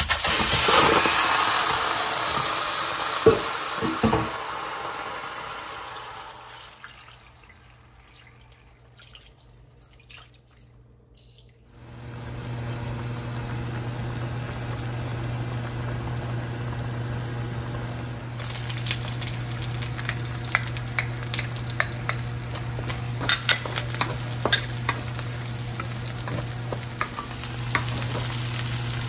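Pork neck bones dropping into a hot stainless steel pan and sizzling loudly, with two knocks as pieces land. After a quiet stretch the meat sizzles steadily as it sears, and later the sizzle crackles and pops as chopped onion is stirred in with a spatula.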